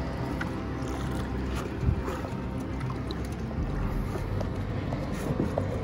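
Wind rumbling on the microphone, with water splashing and knocks against the boat as a large wels catfish is gripped by the jaw and pulled alongside by hand; one louder thump about two seconds in.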